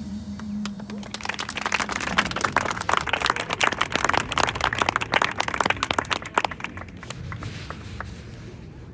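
A held note from the band fades out in the first second, then an audience applauds: dense clapping that thins out near the end.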